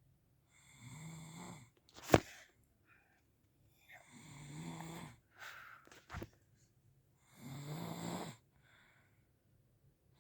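Snoring: three long, pitched snores, about three seconds apart. A sharp click about two seconds in is the loudest sound, with a fainter click about six seconds in.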